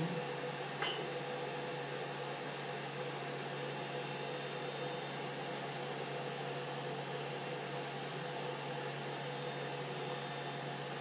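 Steady whir and hum of a Creality CR-10 3D printer's control-box cooling fans running with the printer switched on, with one light click about a second in.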